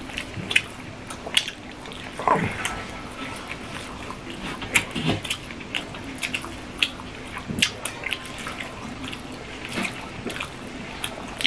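Wet chewing and mouth clicks from people eating rice and fish curry with their hands, fingers mixing the food on steel plates: many short, sharp, wet clicks at an uneven pace.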